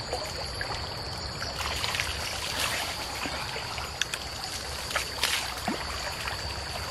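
Shallow stream trickling steadily, with a few small splashes about four and five seconds in as water is scooped and hands are washed. A steady high-pitched whine runs over it.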